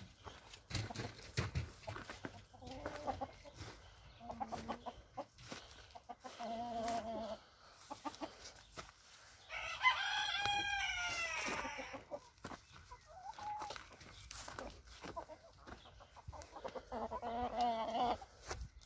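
Backyard chickens calling: several short, low clucking calls come and go, and a rooster crows once about ten seconds in, the loudest sound, lasting about two seconds. Scattered rustles and clicks run underneath.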